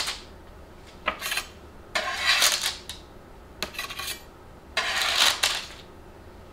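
Metal spatula scraping under freshly baked cookies on a baking tray, about five short scrapes a second or so apart.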